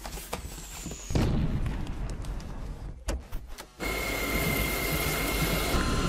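Dyson cordless stick vacuum running in bursts. A rushing burst lasts from about one to three seconds in. After a brief pause, the vacuum cuts in again abruptly about four seconds in and runs steadily with a high motor whine.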